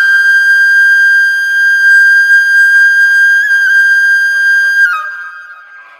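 Background music: a single high note held for about five seconds, stepping down slightly near the end and then fading away.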